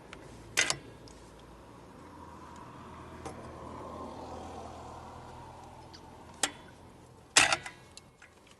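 Three sharp knocks or clinks, the last and loudest with a short metallic ring, over a low background hum that swells and fades.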